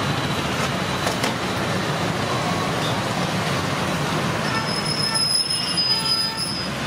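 Steady roadside traffic noise, with a high-pitched squeal from about four and a half to six and a half seconds in.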